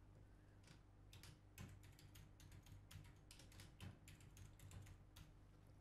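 Faint typing on a computer keyboard: an irregular run of key clicks starting about a second and a half in, as a password is typed in.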